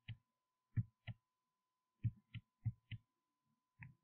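Computer mouse clicking faintly, in quick pairs about a third of a second apart, several pairs in a row.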